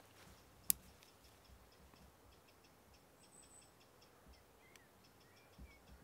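Quiet countryside background with a faint, regular high ticking, about three a second, and a few short bird chirps. One sharp click sounds about a second in.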